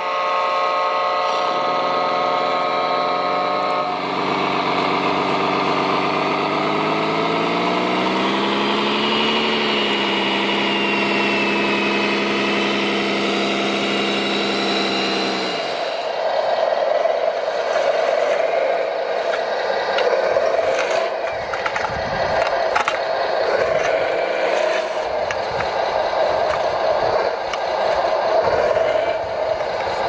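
Radio-controlled model trucks' motors whining, the pitch rising under load and then holding steady. About halfway through, this gives way to a model wheel loader's motor and gears running, with clattering and gravel scraping as its bucket works against a boulder.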